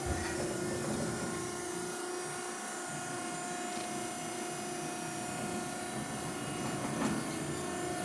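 Max-Pak MP60HD vertical baler's hydraulic power unit running, an electric motor and pump giving a steady hum and whine as the platen rises. It cuts off suddenly at the end.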